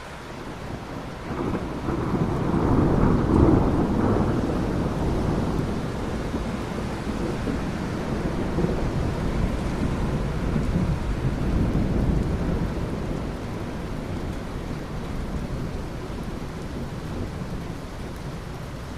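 A long roll of thunder over steady rain: the rumble swells about a second and a half in, peaks a couple of seconds later, then rolls on and slowly fades.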